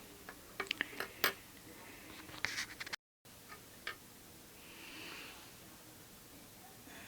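Small sharp clicks and taps of hard plastic printer parts being handled: a quick run of clicks in the first second, a small cluster about two and a half seconds in, and a couple more just after a brief dead gap.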